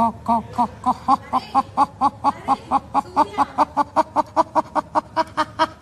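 A person's voice making a fast, even run of short laugh-like syllables, about four a second, each one dipping in pitch; it cuts off abruptly near the end.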